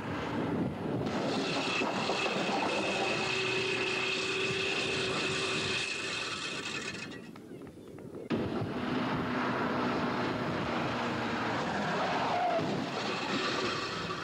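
Old cars driving on a street: engines running with road noise and a steady whine. The sound cuts off abruptly about eight seconds in, then picks up again.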